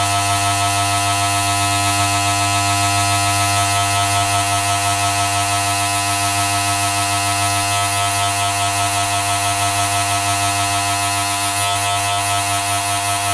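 Continuous electric buzz, steady and loud, holding one low pitch with a dense stack of overtones and no breaks.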